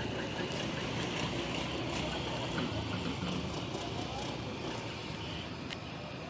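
A Honda HR-V rolling slowly across brick paving, heard from outside the car: a steady low hum of the engine and tyres on the pavers.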